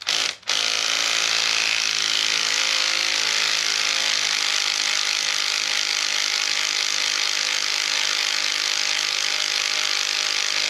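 Cordless electric ratchet running steadily in one long unbroken spell, starting about half a second in, as it turns the screw of a motorcycle chain breaker tool to press a pin out of the drive chain.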